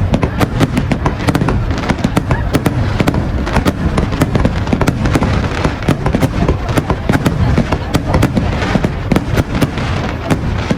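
Fireworks going off in a dense, continuous barrage: many sharp bangs and crackles each second over a low rumble.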